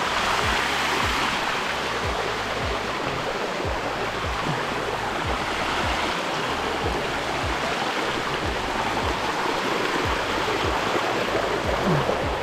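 Water rushing down a waterfall, with background music carrying a steady low beat of about two strokes a second underneath.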